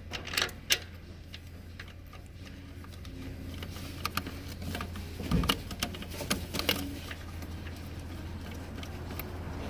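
Scattered metal clicks and knocks of hand tools and engine parts as a new timing chain tensioner plunger is fitted, over a steady low hum.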